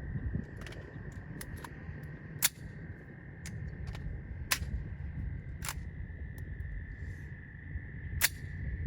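A series of sharp, irregular clicks about a second or more apart, three of them louder than the rest, over a low rumble and a steady high-pitched hum.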